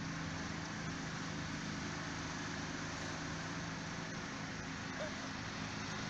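Steady outdoor background noise: an even hiss with a low, steady hum underneath, like distant road traffic.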